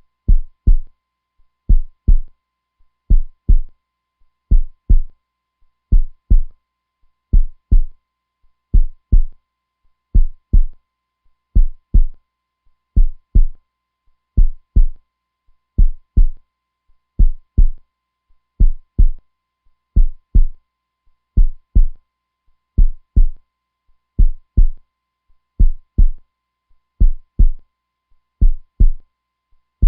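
Heartbeat sound: deep double thumps (lub-dub) in a slow, even rhythm, one pair about every one and a half seconds.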